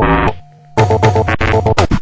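Electronic music: chopped, stuttering synthesizer chords that cut in and out abruptly. The music drops out for a moment about half a second in, then returns with a downward pitch bend near the end.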